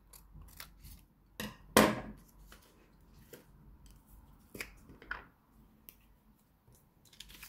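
Scissors cutting a paper pattern piece: a few sharp snips and clicks, the loudest about two seconds in, then lighter clicks and paper handling as the scissors are put down.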